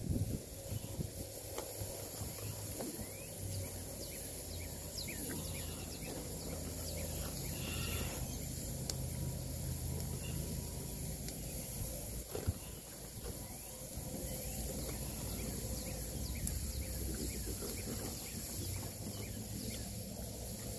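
Chicken drumsticks sizzling on a barbecue grill grate: a steady hiss with faint crackles over a low steady rumble, and one sharp knock about halfway through.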